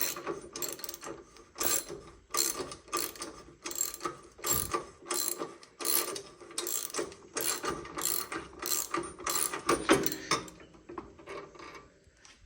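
Hand socket ratchet clicking in repeated strokes, a few per second, as the suspension bolts on a Harley-Davidson Road King are worked loose; it stops shortly before the end.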